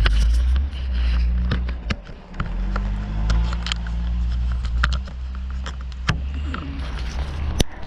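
Handling noise on a body-worn camera: a jacket sleeve brushing and scraping over it, giving scattered clicks and scrapes over a steady low rumble, with one sharp click near the end.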